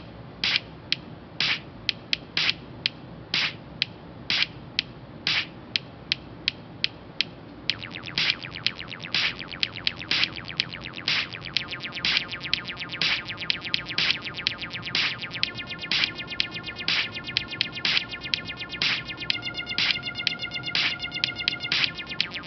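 Intro of a music track made of sharp percussive clicks. The clicks are sparse and irregular at first, then turn into a fast, even ticking about a third of the way in. Faint sustained tones join under the ticking in the last few seconds.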